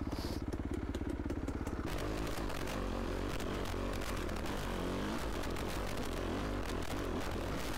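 Yamaha YZ250F four-stroke single-cylinder dirt bike engine running under way, its note rising and falling with the throttle, heard through a helmet-mounted microphone.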